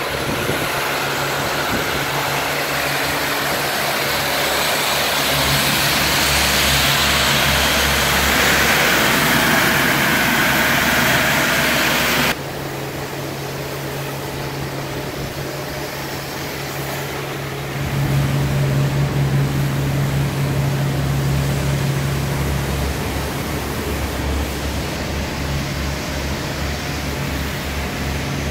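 Steady drone of a livestock carrier ship's machinery. On the open deck it is a broad hiss; after a sudden cut about twelve seconds in, it becomes a lower hum of ventilation fans with a steady low tone among the cattle pens below deck, swelling a little about eighteen seconds in.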